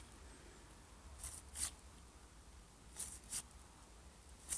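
1989 Upper Deck baseball cards being slid one at a time off a stack in the hand: short paper swishes in quick pairs, three pairs about a second and a half apart.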